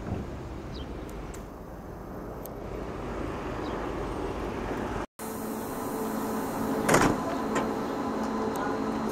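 An electric passenger train standing at a platform gives a steady electric hum of several pitches, with one loud knock about seven seconds in. Before that, a steady low outdoor rumble slowly grows louder and breaks off abruptly about five seconds in.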